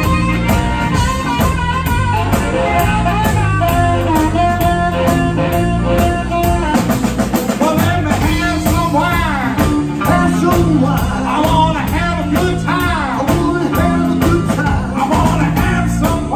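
Live electric blues band playing an instrumental passage: amplified blues harmonica and electric guitar over bass guitar and a drum kit. Held notes give way to bent notes about seven seconds in.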